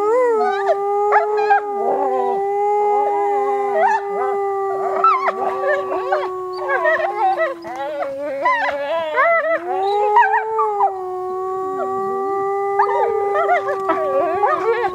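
Chorus howl of wolves, with people howling along: one long steady howl held for about eight seconds, a second one from about ten seconds in, and many shorter wavering, higher howls and yips weaving over them.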